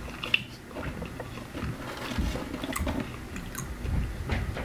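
A person chewing food and biting into a crinkle-cut fry near the end, with scattered small mouth clicks.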